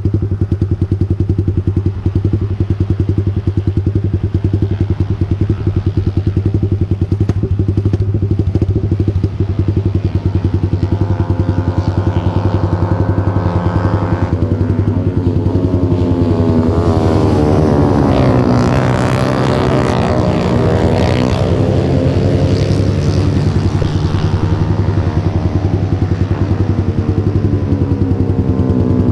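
A motorcycle engine idling steadily close by. From about halfway through, other motorcycle engines rise and fall in pitch as bikes pass on the track, loudest in the second half.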